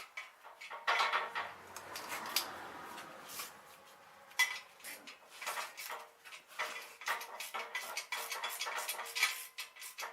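Steel parts and tools of a bearing press being handled, giving repeated metal clinks and clanks, with one sharper knock about halfway through.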